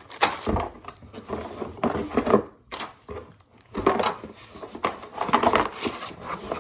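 Cardboard box of plastic toy-playset parts being handled, with loose pieces inside clattering and rustling in irregular bursts and a short pause about three seconds in.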